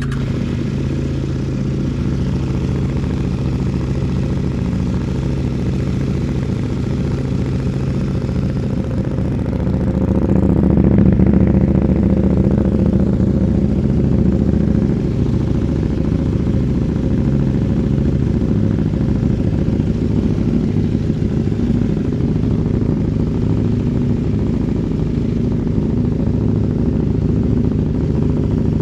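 CFMOTO 800NK's parallel-twin engine running at idle through the stock muffler with the catalytic converter removed, steady, getting a little louder for a few seconds about a third of the way in before settling back.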